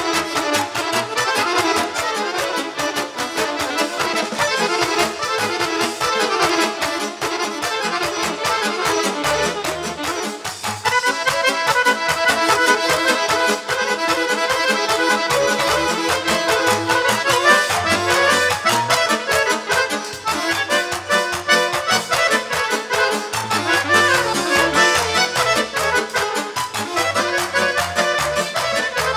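Live Balkan folk band playing an instrumental passage led by accordion, with quick runs of notes over a steady bass beat; the music grows a little louder about eleven seconds in.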